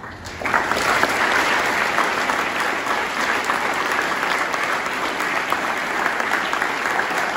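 A large audience clapping, breaking out about half a second in and keeping up steadily.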